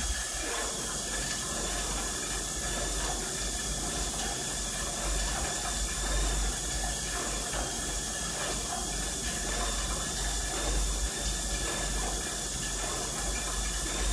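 Monark cycle ergometer being pedalled at a steady pace, its flywheel turning against the friction brake belt under a light load, with a steady hiss and a low rumble.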